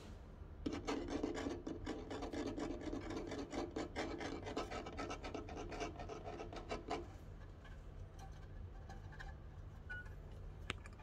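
A kitten's claws scratching and scraping on a bare wooden plank: a dense, rasping run of small scrapes that starts about a second in and stops after about six seconds.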